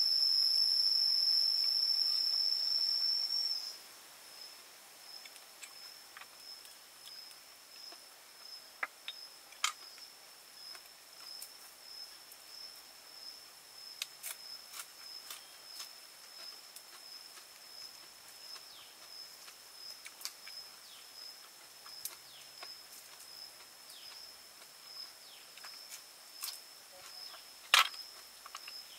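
An insect's steady high-pitched trill, loud for the first few seconds and then much fainter with a faint even pulse. A scatter of sharp clicks sounds over it, the loudest near the end.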